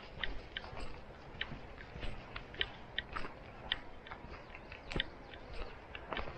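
Footsteps crunching on a gravel and dirt hiking trail, an irregular run of short crunches about two a second.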